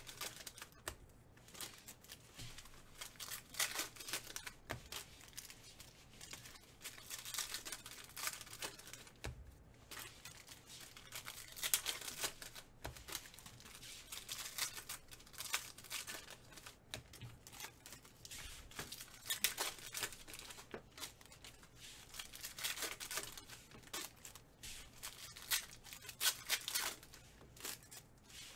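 Foil wrappers of 2017 Donruss football trading-card packs being torn open and crinkled by hand, in repeated bursts of tearing and crinkling.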